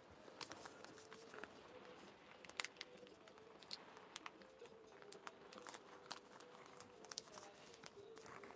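Faint, scattered ticks and clicks of rain drops striking the camper van's roof, irregular, a few a second, over a faint steady hum.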